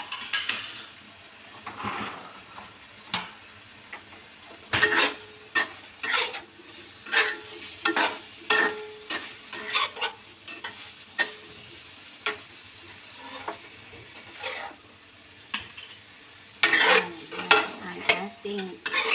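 Metal spatula scraping and knocking against a stainless steel wok as eggplant and minced pork are stir-fried, over a faint steady sizzle. The knocks come about once or twice a second from about five seconds in, with a quicker, louder clatter near the end.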